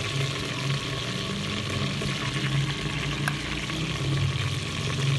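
Sliced red onion frying in hot oil in an aluminium pressure cooker: a steady sizzle, over a low hum.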